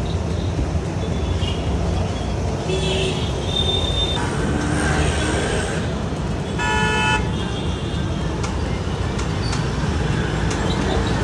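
Street traffic noise, a steady rumble of passing vehicles, with a vehicle horn honking once briefly a little past the middle.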